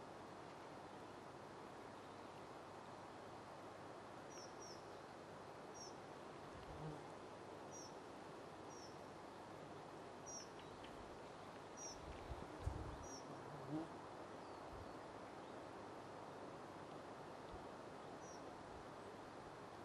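Faint steady outdoor hiss, with a small bird giving short high chirps every second or two, most of them in the first two-thirds. A few soft low thumps come near the middle.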